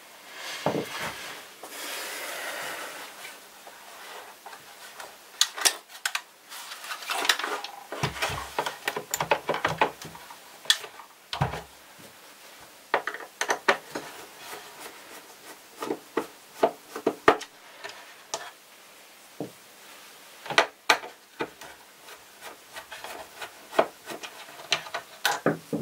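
Plastic housing of a Vorwerk VR100 robot vacuum being handled and turned over on a table. There is a scraping slide about a second in, dull knocks as it is set down, and many scattered plastic clicks and taps, ending with a tool working in the dustbin bay.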